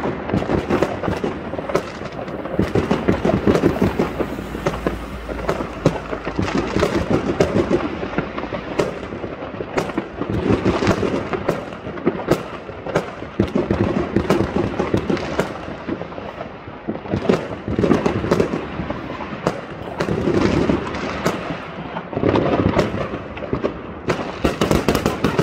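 Fireworks going off all around: a dense, unbroken crackle of pops and bangs.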